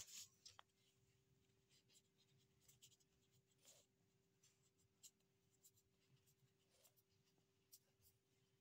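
Faint scratching of a pen writing on lined notebook paper in short, irregular strokes, over a faint steady hum.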